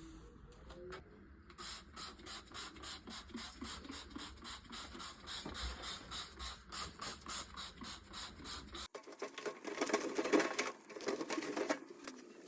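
Household cleaning strokes: rhythmic scrubbing at about three strokes a second. After a sudden cut near the middle, louder and rougher scraping strokes follow.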